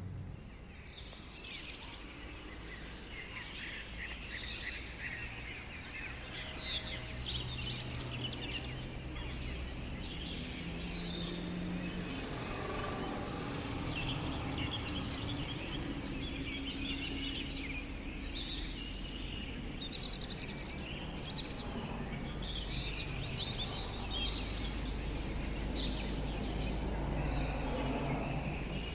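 Small birds chirping and twittering on and off throughout, over a steady low background rumble.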